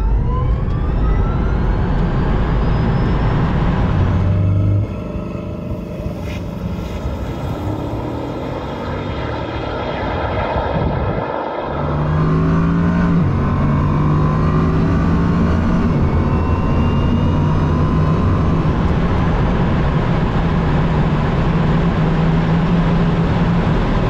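Cabin sound of hypercars accelerating flat out at very high speed. At the start, the Rimac Nevera's electric motors whine, rising in pitch. Then comes a heavy roar of wind and road with a steady low drone. The roar drops about five seconds in and grows loud again about twelve seconds in.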